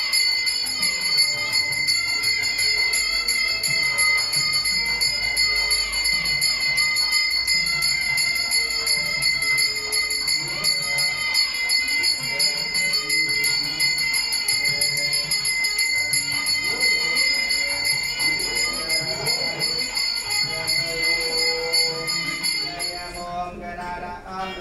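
Temple puja bell rung continuously during worship, a steady bright ringing that stops abruptly near the end.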